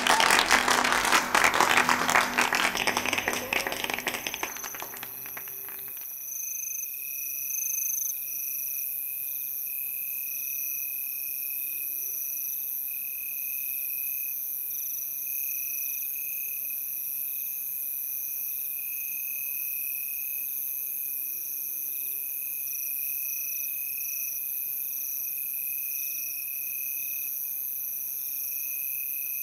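Crowd applause that dies away over the first few seconds, then crickets chirping steadily in repeated trills at two pitches, one high and one higher.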